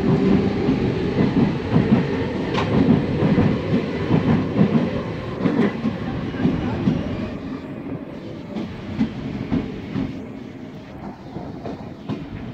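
A Berlin S-Bahn class 485 ("Coladose") electric train running past, its wheels clattering over the rail joints. It grows fainter over the last few seconds as it pulls away.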